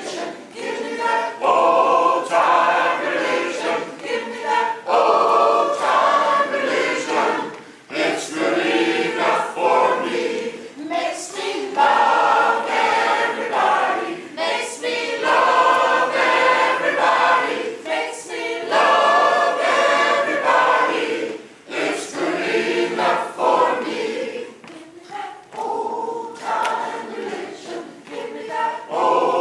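A large mixed choir of men's and women's voices singing together in phrases of a few seconds, with short breaks between them.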